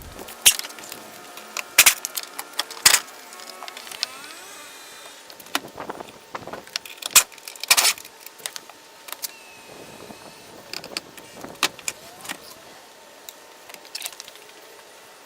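Scattered metallic clanks, clicks and knocks from hand tools and car-seat hardware, several ringing briefly, as a car's passenger seat is worked on.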